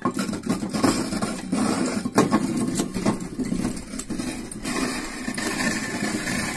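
Motor-driven wood lathe running as a hand chisel cuts into a spinning wooden log being turned into a madal drum shell, with irregular scraping knocks from the cutting. The knocking stops about two thirds of the way through, leaving the lathe running steadily.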